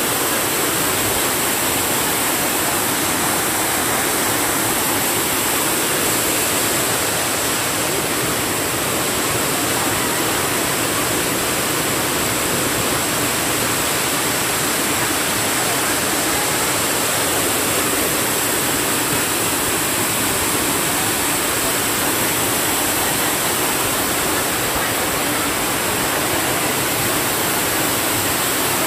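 Waterfall pouring over rocks into a rocky stream: a steady, even rush of falling water.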